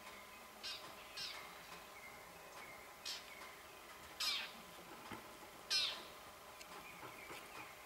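Short animal calls, each sweeping down in pitch, five in all; the two loudest come in the second half.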